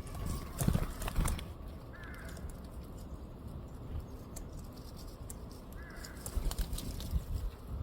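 A bird calling twice, about four seconds apart, each a short arched note. Two sharp knocks sound about a second in.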